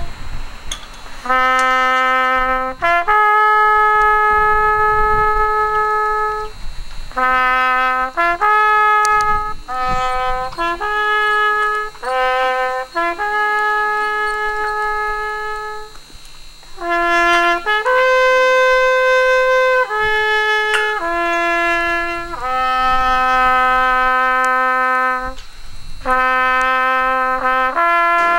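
Solo trumpet playing a slow call of long held notes on a few pitches, each phrase led in by short quick notes, with brief breaks for breath between phrases.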